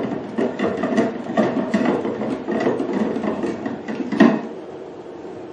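Hard plastic parts of a beauty machine's wastewater container being handled and fitted together: a quick run of small clicks, knocks and scraping, with one louder knock about four seconds in.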